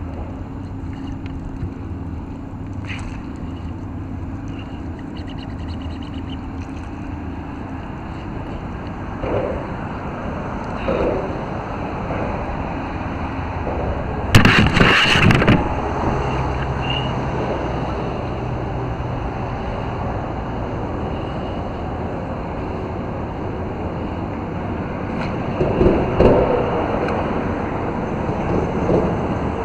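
Steady low rumble of wind and water on open water, under a fishing fight from a kayak, with a few short louder noises. The loudest of these comes about halfway through and lasts about a second.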